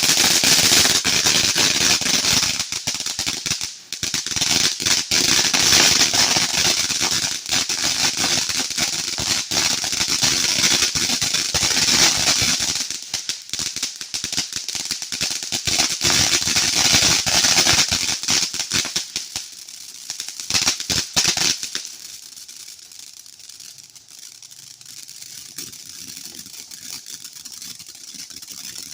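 A "Brain Buster" consumer firework going off with a dense, loud crackling hiss of many fine pops. It stops suddenly about 21 seconds in, leaving only a faint background.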